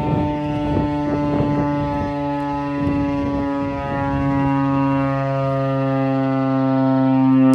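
STH-10 outdoor warning siren sounding a steady tone that sags slightly in pitch, with rough gusty noise over it in the first half.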